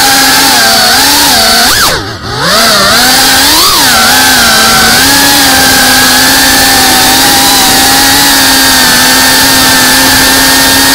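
FPV quadcopter's brushless motors and propellers buzzing loudly in flight, heard from the drone's own onboard camera. The pitch dips sharply about two seconds in as the throttle is cut, swells again just after, then holds steady.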